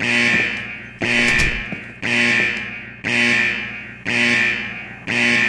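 Fire alarm going off: a ringing alarm tone that repeats about once a second, each ring starting loud and fading away before the next. There is a short click about a second in.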